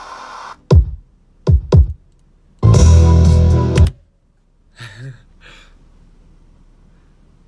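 Playback of an unmixed electronic beat: a sustained synth texture, then deep bass drum hits that fall in pitch, then a full chord with heavy bass for about a second. The music cuts off suddenly about four seconds in, leaving low room tone with a brief faint sound near five seconds.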